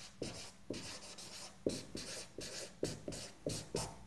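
Dry-erase marker writing on a whiteboard: about ten short, irregularly spaced strokes of the marker tip on the board as letters are written.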